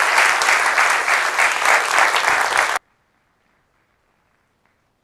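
Audience applauding, a dense crackle of many hands clapping, which cuts off abruptly a little more than halfway through, leaving near silence.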